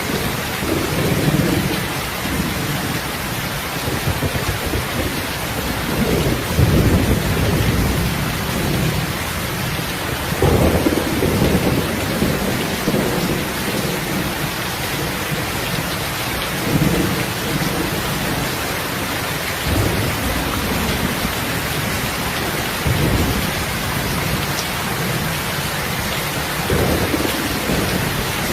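Steady heavy rain hissing, with low rumbles swelling up every few seconds.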